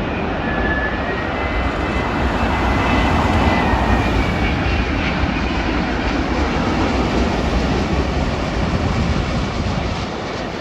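Boeing 787-9 Dreamliner's jet engines rumbling steadily as the airliner comes in to land, with a faint high whine over the rumble, easing slightly near the end.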